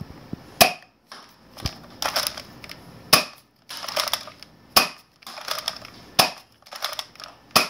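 Nerf Hammershot dart blaster fired five times, each shot a sharp snap about a second and a half apart, with the noise of the hammer being pulled back to prime it between shots.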